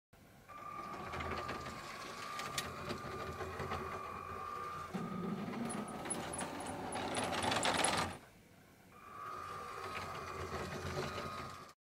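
Lego Powered Up train motors whirring as the trains run along the track, with a steady high whine. The sound grows louder toward about eight seconds in, stops briefly, then starts again.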